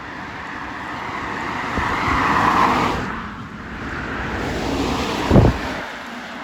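Cars passing on a road: one swells and fades away about two and a half seconds in, and a second passes soon after. A short low thump comes near the end.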